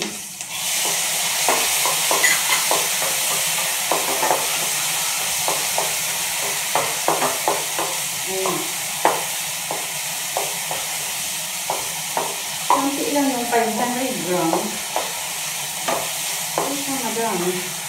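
Onion, garlic and tomato sautéing in oil in a pan: a steady sizzle that gets louder about half a second in as the chopped tomatoes go in, with a wooden spatula stirring and clicking against the pan.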